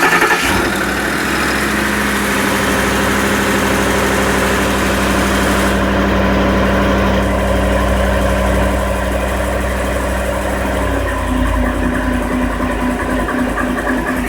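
Ford F-150 pickup engine running at fast idle right after a cold start, with a steady tone over the rumble. About eleven seconds in, the tone shifts and the engine settles a little quieter. This is the cold-start-only noise that the owner is chasing, alongside fuel-trim codes P2096 and P2098 that new sensors have not cleared.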